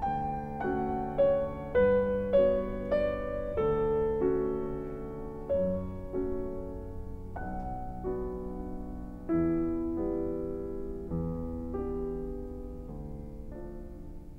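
Background piano music: a slow, soft melody of single held notes that fades toward the end.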